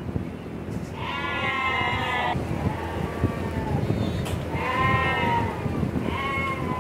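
Weanling lambs bleating: a long loud call about a second in, another around the middle and a short one near the end, over a steady background noise.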